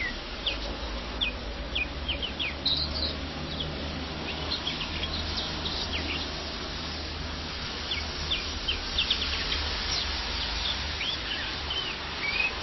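European greenfinch giving short, sharp chirps that dip quickly in pitch, in scattered runs in the first few seconds and again about two-thirds of the way through, over a steady low hum and hiss.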